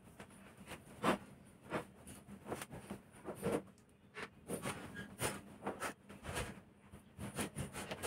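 Bedding being handled as a bed is made: a cloth sheet rustling as it is spread and smoothed over the mattress, with a few soft knocks, the sharpest about a second in.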